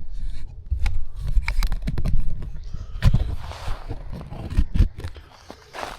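Irregular footsteps crunching and scraping on icy snow, with a low, uneven rumble across the microphone that eases off near the end.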